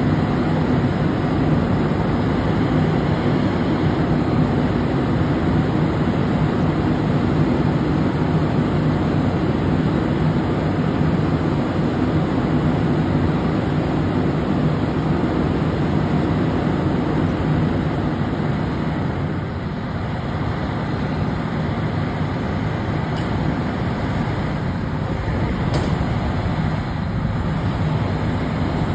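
Fire apparatus diesel engines idling steadily, a continuous low rumble, as the rigs are run up for their morning check. Two faint clicks come late on.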